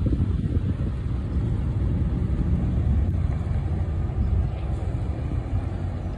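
Steady low rumble of a sightseeing cruise boat's engines as it comes alongside the pier.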